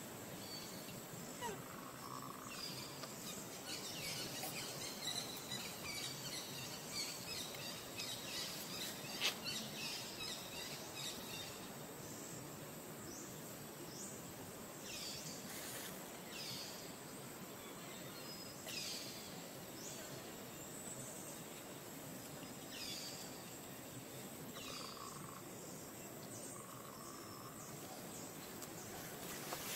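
Outdoor forest ambience: a steady hiss, with a bird's short, high, falling chirps repeated every second or two through the second half.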